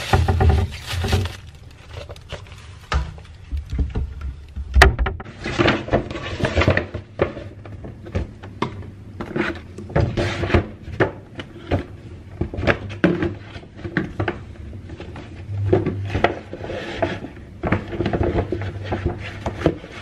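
A brown paper bag and plastic bags rustling and crinkling as they are handled, with irregular knocks and thuds as plastic food containers are put down on a table.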